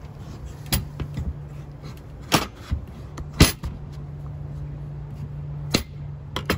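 Kitchen knife cutting through a peeled butternut squash, with a series of sharp knocks as the blade pushes through the dense flesh and strikes the plastic cutting board. The loudest knock comes about three and a half seconds in, over a steady low hum.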